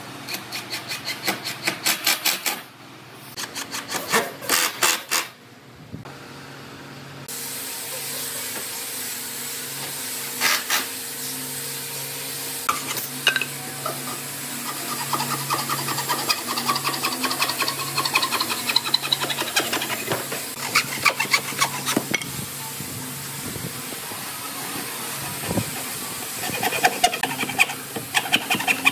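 Hand sawing with a traditional wooden bow saw cutting through pine in quick back-and-forth strokes, about four or five a second, in short bursts.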